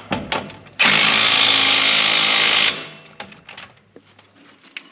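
A power tool runs in one steady burst of about two seconds, cutting off abruptly, as it drives in a bolt on the front wheel hub assembly being installed. A few light metallic clicks from handling the tool and hub come before and after it.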